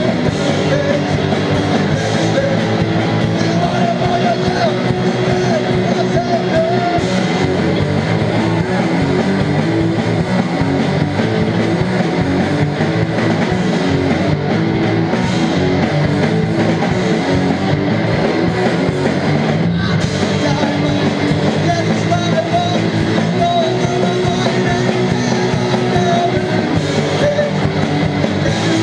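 A live rock band playing loud and without a break: distorted electric guitars over drums.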